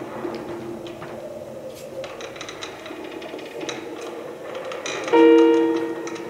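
Quiet room sound with faint scattered clicks, then about five seconds in a loud held chord on a musical instrument starts and fades away over about a second.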